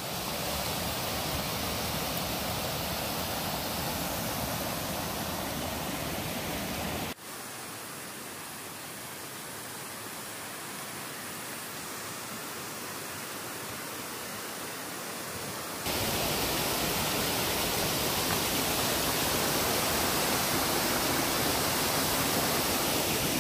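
Water rushing down small rocky cascades and waterfalls in a mountain creek, a steady rush of noise. It turns abruptly quieter about seven seconds in and abruptly louder again near sixteen seconds, as a different cascade takes over.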